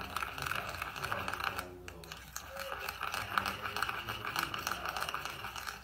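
Metal teaspoon stirring fast in a small ceramic bowl, scraping and clinking against its sides as white miso is worked smooth in a little oat milk. There is a brief pause about two seconds in.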